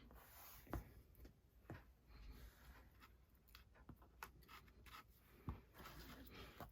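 Very faint rustling and light taps of small cardstock pieces and a fine-tip glue bottle being handled on a work surface, with a few sharper taps, the clearest about a second in and again past five seconds.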